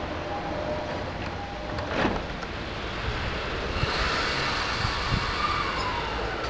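E217-series electric train at a station platform, doors shutting with a knock about two seconds in, then the train starting to pull away with a rising rumble and a motor whine that slowly falls in pitch.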